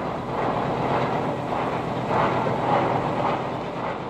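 Steady rushing rumble of running machinery, swelling and easing every second or so.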